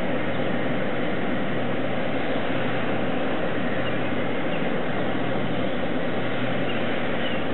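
Steady, unchanging rushing noise with a faint low hum underneath, no distinct events.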